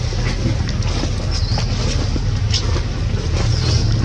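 Steady low rumble of outdoor ambience, with a short high chirp that dips and rises again about every two seconds.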